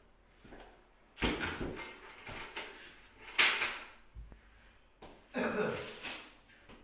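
Bumps and scrapes of someone handling tools and materials, with three louder bursts a second or two apart.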